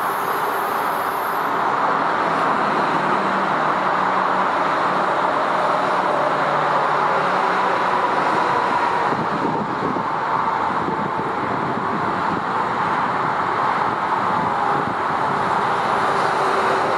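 Steady, loud rushing noise of moving vehicles with no breaks, and a low hum underneath for the first several seconds.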